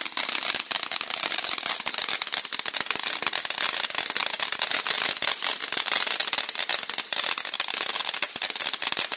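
Consumer fireworks crackling: a dense, unbroken stream of rapid small pops and crackles with a steady hiss.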